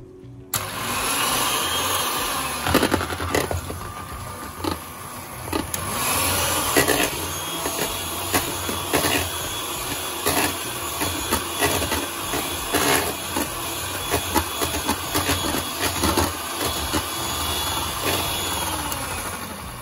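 Electric hand mixer running, its beaters whipping softened butter in a mixing bowl, with frequent clicks and knocks throughout. It starts suddenly about half a second in.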